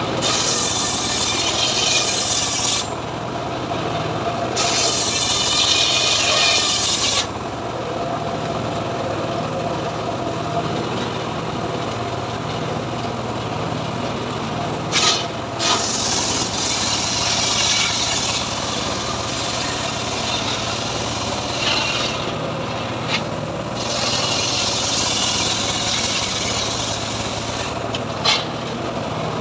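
Homemade engine-driven circular saw ripping a lamtoro (leucaena) log lengthwise into boards: the blade screams through the wood in several cutting passes of a few seconds each, over the steady running of the engine that drives it. A couple of sharp knocks near the middle and near the end.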